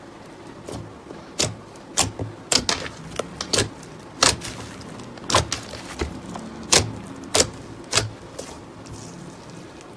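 Slime being squeezed and pressed, giving sharp popping clicks as air pockets burst, irregular but roughly one to two a second.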